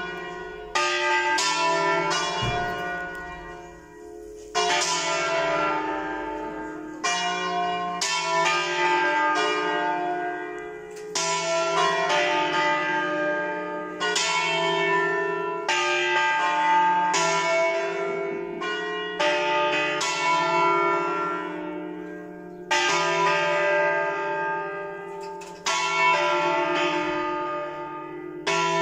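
Three church bells, the second, third and fourth of a five-bell ring, swinging full circle (a distesa) and striking in an uneven overlapping peal, each stroke ringing on into the next. This ringing calls people to the weekday Mass.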